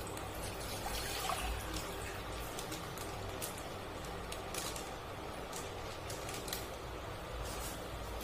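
Milk being poured from a plastic pouch into a steel saucepan: a soft, steady trickle of liquid.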